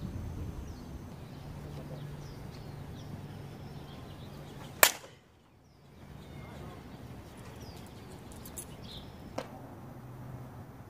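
A slowpitch softball bat hitting a softball once with a single sharp, loud crack about five seconds in, and a fainter knock near the end. Birds chirp faintly behind.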